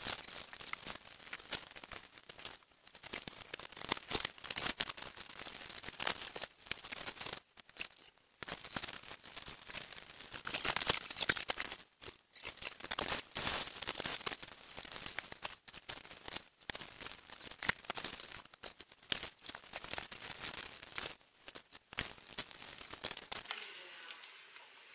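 Thin plastic bag crinkling and rustling under the hands as empanada dough is folded inside it and its edges pressed, with dense irregular crackles that stop shortly before the end.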